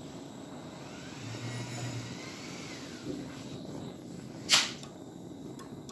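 Handheld gas torch flame burning with a steady rush. A short, sharp hiss about four and a half seconds in is the loudest sound.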